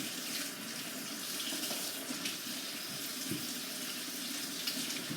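Water tap running steadily into a sink while something is rinsed clean under the stream.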